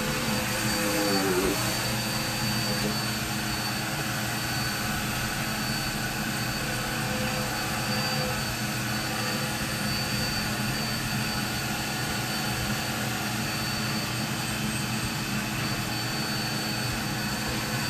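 Upright vacuum cleaner running steadily, its motor giving a constant high whine over an even rush of air.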